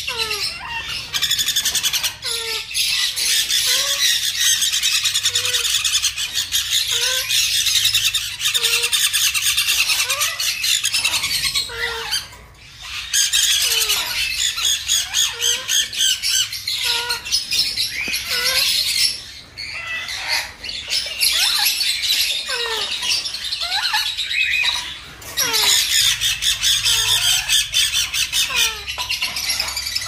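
Baby parrots making food-begging calls during hand-feeding: a continuous, rapid, raspy squawking with short gliding chirps mixed in. It drops out briefly a few times.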